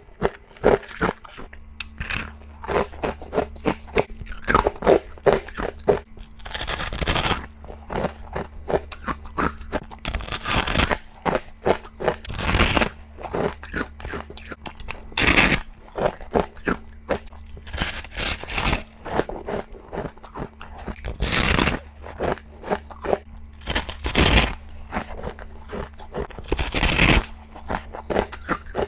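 Ice being bitten and chewed close up: rapid crunching chews, with a louder crunching bite every few seconds.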